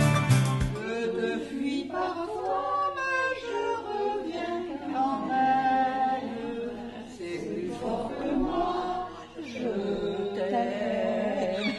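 A small group of elderly people singing a French song together without accompaniment, the voices uneven and unpolished. Background music cuts off within the first second, just before the singing begins.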